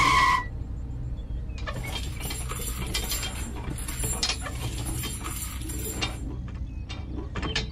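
Small plastic props being handled and set down on sand, with soft rustling and light clinks, over a steady low hum. A short electronic tone cuts off just after the start.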